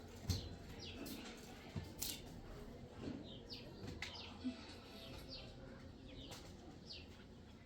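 Small birds chirping: short, high, falling chirps repeated every half second or so. Two sharp knocks in the first two seconds.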